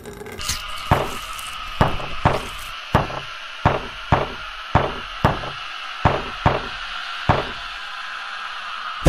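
A series of about a dozen loud knocks, roughly two a second and spacing out toward the end, over a steady high hum.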